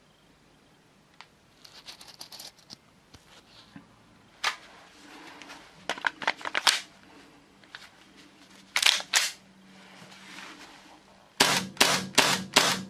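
Tokyo Marui Hi-Capa 5.1 Gold Match gas blowback airsoft pistol dry-firing with no BBs, its slide cycling with a sharp crack at each trigger pull because the dry-firing insert in the magazine lets it blow back empty. Lighter metal clicks of handling come first, then two shots about nine seconds in and a quick string of about five near the end.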